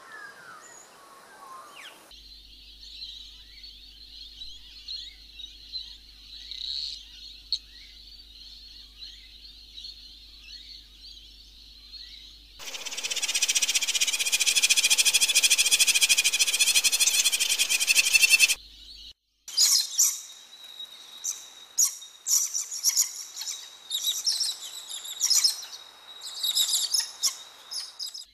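Birds chirping and calling. A steady high chirping runs until a much louder, denser stretch of chirping begins about twelve seconds in and lasts about six seconds. The sound then cuts out briefly and returns as scattered sharp calls.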